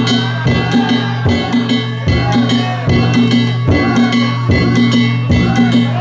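Danjiri festival music (narimono): a drum beaten in a brisk, steady rhythm with metal gongs clanging along, their ringing holding through.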